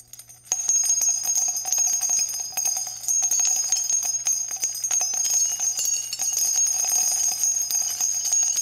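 Small jingle bells shaking continuously with a bright ringing, starting about half a second in.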